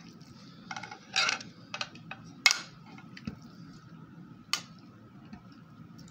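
Chunks of raw meat dropped by hand into the stainless-steel bowl of an electric meat chopper, giving about half a dozen sharp knocks and clinks against the steel, the loudest about two and a half seconds in.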